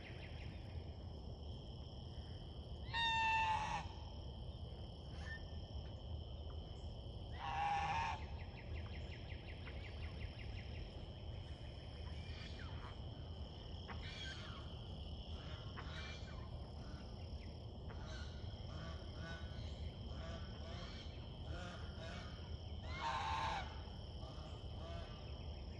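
Goose honking three times, short loud calls a few seconds apart and then after a long gap, with softer chattering calls in between, over a steady high-pitched background chorus.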